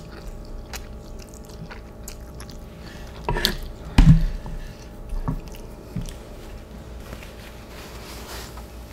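A person chewing instant noodles, with scattered small mouth clicks. A louder low thud about four seconds in is the loudest sound, followed by a couple of softer knocks.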